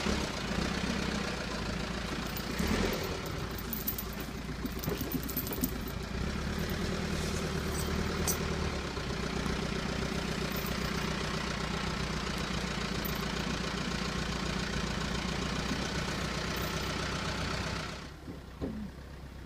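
Backhoe engine running steadily while it pulls on a chained stump, with a few light clicks and knocks in the first half. The sound falls away sharply near the end.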